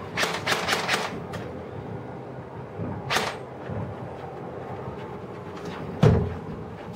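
Household knocks and clicks: a quick run of small clicks near the start, a brief swish about three seconds in, then a single heavy thud about six seconds in, like a door or cupboard shutting.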